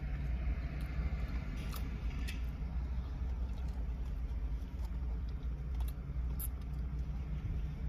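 Steady low hum of an idling car engine, with a few faint clicks over it.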